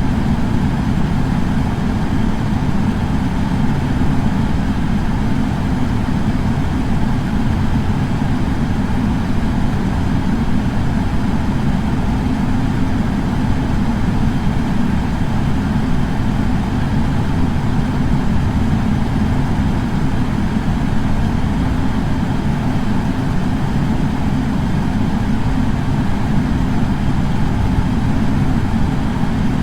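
Air purifier fan running steadily: a constant low whooshing hum of moving air with a fainter hiss above it.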